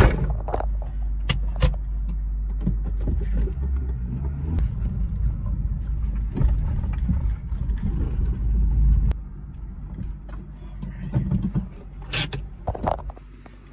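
Acura RSX driven at low speed, heard from inside the cabin: a steady low engine and road rumble with scattered sharp clicks and knocks. The rumble drops off about nine seconds in as the car slows to a stop.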